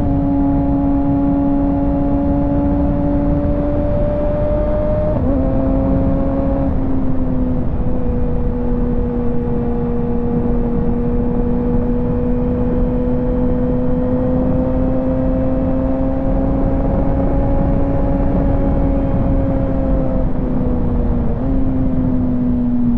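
Kawasaki ZX-6R 636 inline-four engine running at steady highway cruising revs. Its pitch drifts gently up and down with small throttle changes and steps briefly a few times, over a low rush of wind and road noise.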